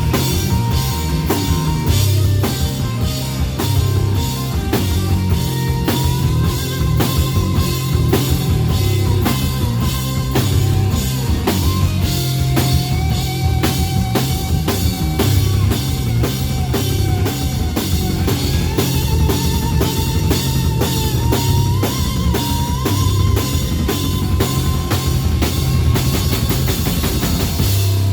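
Heavy rock music played by a full band: a driving drum kit with bass drum and cymbals, a heavy bass line, and held lead notes that bend up and down in pitch.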